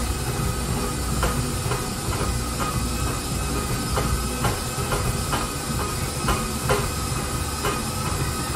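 Stand mixer running steadily as it churns ice cream base, with a regular clacking about twice a second. Liquid nitrogen hisses from a frosted hose into the bowl.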